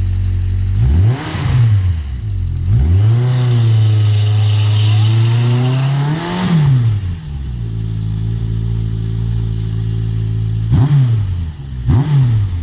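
Engine idling and being revved. It gets a quick blip, is then held at raised revs for a few seconds before rising and dropping back, and gets two more quick blips near the end. The owner says a valve is knocking (valve tapping).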